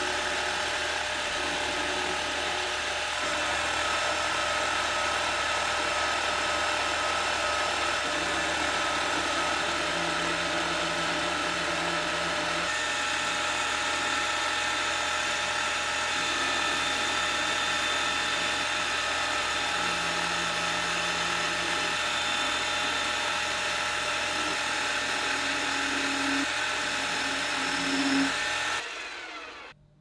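Metal lathe running while a carbide insert turns down a small metal pin: a steady, high-pitched machine whine mixed with the hiss of the cut. It stops abruptly near the end.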